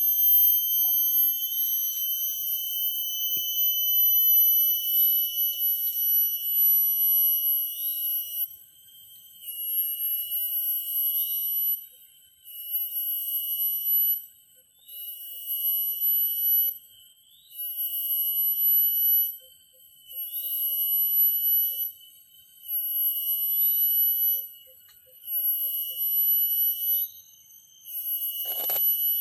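Cicadas shrilling: a steady, piercing high-pitched drone that from about eight seconds in breaks into a regular pulse, on for one and a half to two seconds, off for about half a second to a second. Faint rapid clicking sounds in some of the gaps, and a brief thump comes near the end.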